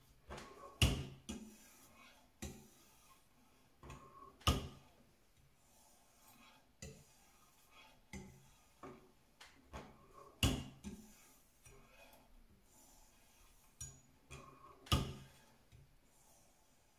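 Scattered knocks and clicks at irregular intervals, about a dozen, the loudest about a second in, near 4.5 s, near 10.5 s and near 15 s: a knife and sharpening gear being handled and set down after sharpening, with light rubbing between.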